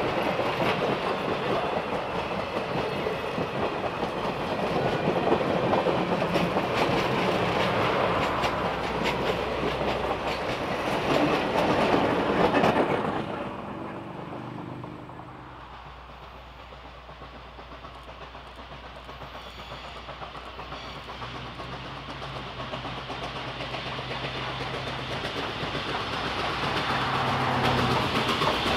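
Passenger train cars rolling past on jointed track, wheels clacking over the rail joints, until the sound drops away about halfway through. After a quieter stretch, a low rumble builds again near the end as the Nickel Plate Road 765 steam locomotive approaches.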